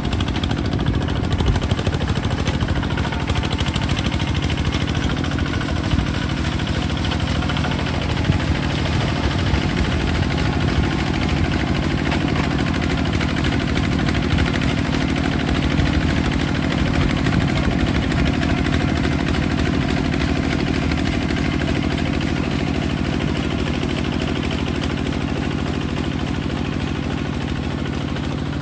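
Small Kubota bulldozer's engine running steadily at a constant speed, with faint irregular ticking and rattling.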